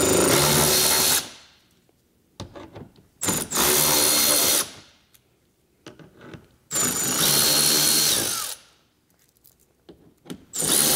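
Cordless electric ratchet with a 10 mm socket spinning out fender-well bolts, in four short runs of about a second each, a couple of seconds apart.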